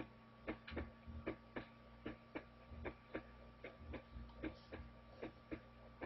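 Recorded human heart sounds, a steady lub-dub, lub-dub at about eight beats in six seconds. Each beat is S1, the closure of the AV valves, followed closely by S2, the closure of the semilunar valves. The gap from S1 to S2 is shorter than the gap from S2 to the next S1, as in a normal resting heart.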